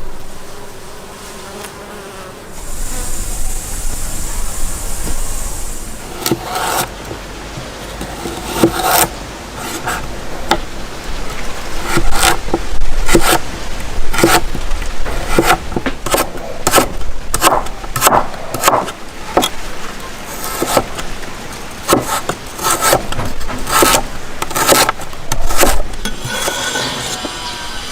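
Irregular sharp knocks and taps, a couple a second, begin about six seconds in over a steady low rumble; before them there is a few seconds of high hiss.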